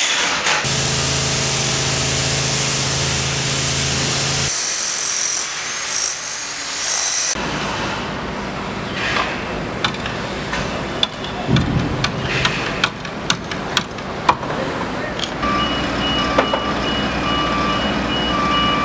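Construction site noise: heavy machinery engine running steadily, then scattered sharp knocks and bangs, and near the end a vehicle's reversing alarm beeping at an even pace.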